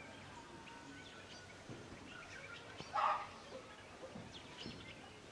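Faint rural ambience with scattered bird chirps and calls. About three seconds in comes one short, louder call, likely from domestic fowl.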